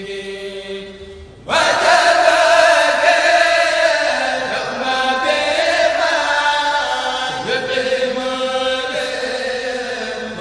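Khassida, an Arabic Sufi devotional poem, chanted to a melody. The chanting jumps much louder about a second and a half in, with several voice lines layered together.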